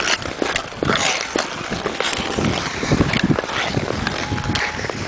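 Ice skate blades scraping and gliding on rough outdoor ice: a steady hiss broken by irregular scrapes and clicks as the skates push off.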